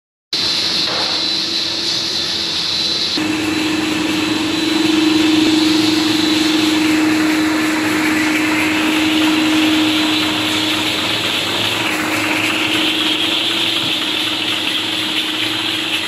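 A two-layer rotary tablet press running while it presses dishwasher tablets: a steady machine hum with a constant low tone and a hissing whir. About three seconds in, a high hiss drops away and the hum grows stronger.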